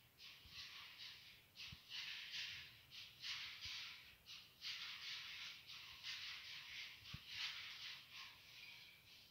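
Plastering trowel scraping over wet plaster on a wall in rapid, repeated swishing strokes with short gaps between them, as the plaster is smoothed.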